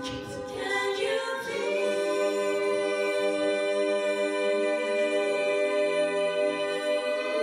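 All-female a cappella group singing, a solo voice on a microphone over the group's harmonies. After a second or so of moving parts, the voices settle into a long held chord.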